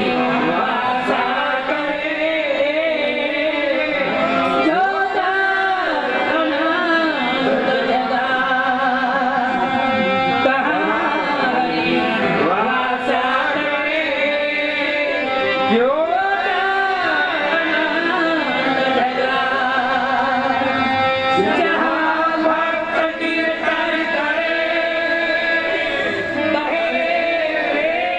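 Male voice singing a devotional song through a microphone and PA, accompanied by a harmonium's held reedy chords.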